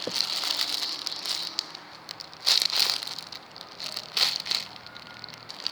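Crinkling of plastic packaging being handled, in a few short bursts: the loudest come about two and a half seconds in and again about four seconds in.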